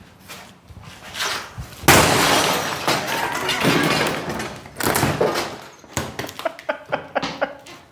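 A sledgehammer smashing into a Samsung TV: a heavy blow about two seconds in sets off a long crash of breaking and shattering, a second blow lands about five seconds in, and smaller clinks and knocks of breaking pieces follow near the end.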